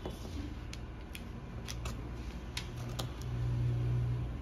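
Scissors cutting through pattern paper: a series of separate sharp snips of the blades. A low hum runs underneath and swells about three seconds in.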